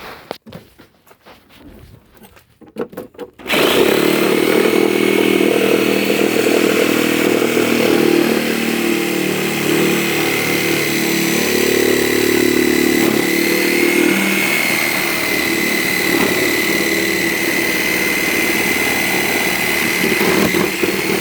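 Handheld power tool running steadily with a high whine as it cuts through the plastic body of a Power Wheels ride-on toy. It starts about three and a half seconds in, after a few light clicks and knocks.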